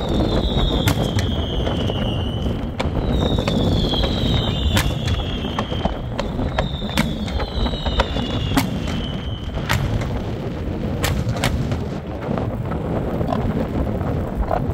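Fireworks display: firework shells bursting in a string of sharp bangs, with three high whistles that each fall in pitch over about two seconds during the first ten seconds. A steady low rumble of wind on the microphone runs underneath.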